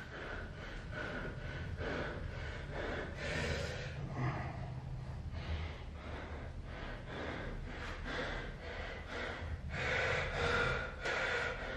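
A man breathing hard and panting, winded from a long set of burpees, with a gasping breath about every second.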